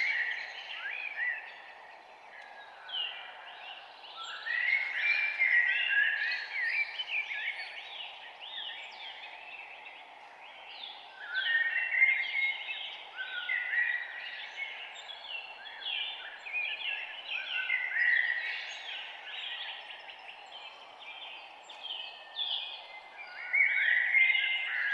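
Songbirds chirping and singing in a morning chorus, their quick rising and falling notes coming in bouts with short lulls between, over a steady low background hiss.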